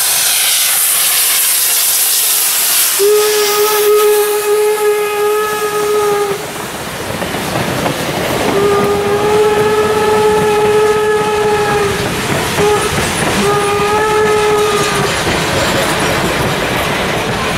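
Steam locomotive No. 475, a 4-8-0, passes with a loud hiss of steam. It then blows its steam whistle in four blasts, long, long, short, long, the grade-crossing signal, while the freight and passenger cars behind it roll by with a clickety-clack over the rail joints.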